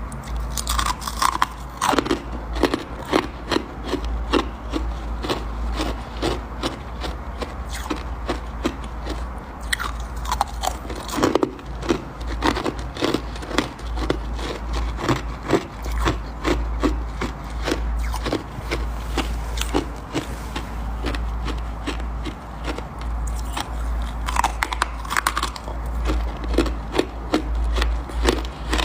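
Close-up chewing of soft freezer frost and powdery ice: a quick run of crisp crunches, several a second, with a few bigger bites. A steady low hum runs underneath.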